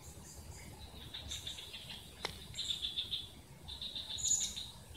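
Insects trilling in repeated trains of fast pulses, with a faint low rumble underneath. There is one sharp click about two seconds in and a brief higher chirp near the end.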